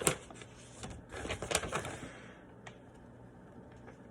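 Paper and small items being handled, rustling and crinkling, with a sharp click at the start and a burst of rustling about a second in before it settles to a few faint ticks.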